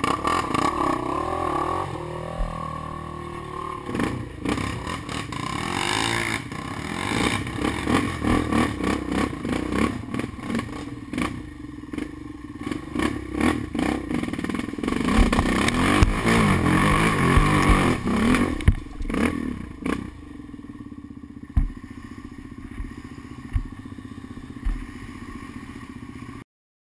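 Quad ATV engine revving hard and easing off as it is ridden over rough, muddy trail, with frequent clattering knocks from the machine. It drops to a quieter, steady run with a few thumps near the end, then cuts off abruptly.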